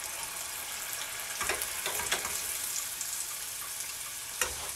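Food deep-frying in hot oil: a steady, high sizzling hiss, with a few light knocks about one and a half, two and four and a half seconds in.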